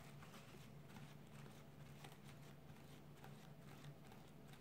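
Near silence: room tone with a faint steady low hum and a few faint light ticks.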